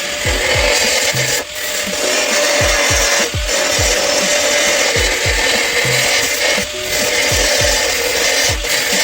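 Power tool sanding the sheet-metal bodywork of the door with a steady abrasive hiss that dips briefly every second or two as the tool is lifted or shifted. Low drum beats from background music run underneath.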